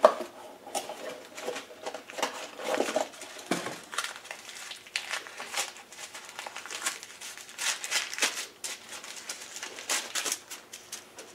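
Paper and plastic parts packaging crinkling and rustling in irregular bursts as parts are unwrapped and handled, opening with a sharp knock.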